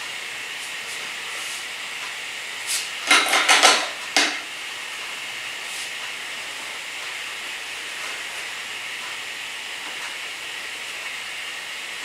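Steady background hiss, broken about three seconds in by a quick run of five or six sharp knocks and clatters over about a second and a half.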